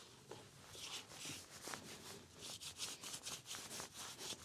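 Hands mixing and rubbing salt and spices into raw lamb for the marinade: faint, irregular rustling strokes with a few soft clicks.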